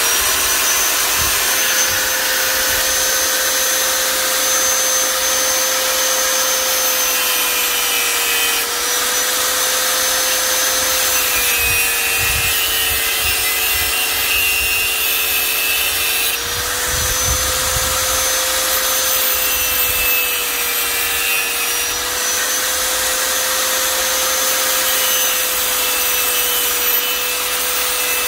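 Small handheld electric mini grinder running at high speed. Its steady motor whine dips slightly in pitch now and then as it grinds against material.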